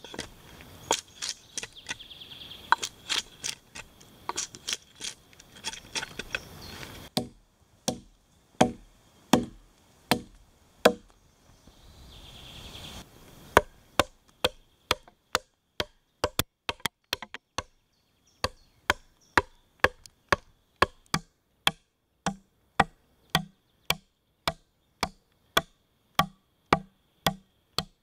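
A hatchet chopping into fresh logs, stripping bark and cutting notches. A long series of sharp chopping strikes, irregular at first, then a steady run of about two strikes a second from about halfway in.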